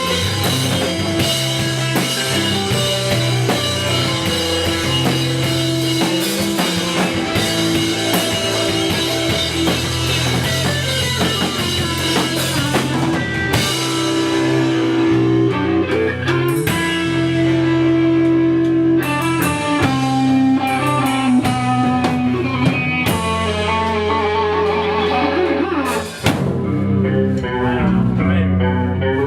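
A live rock band playing an instrumental passage: electric guitar and bass over a drum kit, with no vocals. The music drops briefly about 26 seconds in, then carries on.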